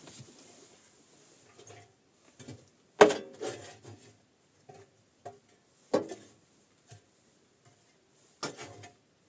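A series of irregular knocks and clunks, with a few seconds between the loudest ones, which come about three and six seconds in and again near the end. The blows sound woody and some ring briefly.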